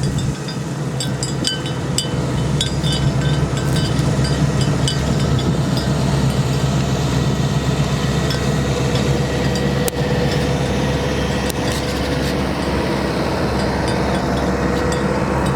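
Bells hung on grazing water buffaloes clinking and clanking irregularly, many short metallic strikes, over a loud, steady low rumble.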